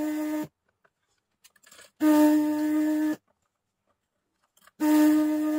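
Vacuum pump of a Weller WR3M desoldering station switching on in bursts of about a second as the desoldering iron sucks molten solder from an IPM's through-hole pins: a steady hum with a hiss of air, cut off sharply each time. One burst ends about half a second in, another starts about two seconds in, and a third starts near the end.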